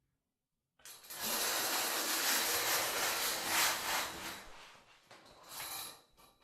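Shower curtain pulled along its rod, its hooks sliding and rattling: one long pull of about three seconds, then a shorter pull near the end.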